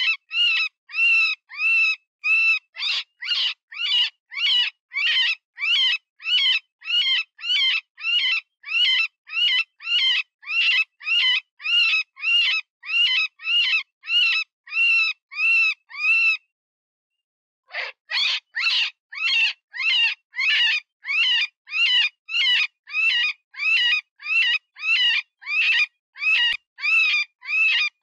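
Cottontail rabbit distress call: a run of high, wavering squeals about two a second, each arching in pitch. They break off for about a second and a half two-thirds of the way through, then resume. It is the wounded-rabbit cry used to lure predators.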